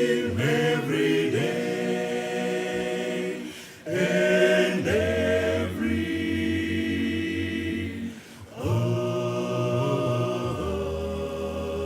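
Gospel vocal group singing unaccompanied in harmony, holding long chords with short breaks about four and eight seconds in.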